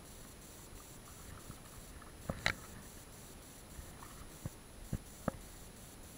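A handful of short, sharp knocks and clicks over a faint steady background, the loudest about two and a half seconds in.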